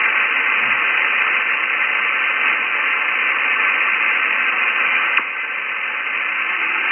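Steady, heavy hiss of 40-metre band noise from an Icom IC-7610 transceiver's speaker in lower-sideband receive, thin-sounding with no deep bass or treble; the noise is terrible and no station is answering the CQ. A single click about five seconds in, after which the hiss is slightly quieter.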